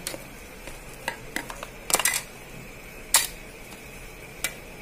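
A handful of short sharp clicks and taps, a quick cluster about two seconds in and the loudest about three seconds in, from a phone back cover being lifted out of its cardboard box tray and handled.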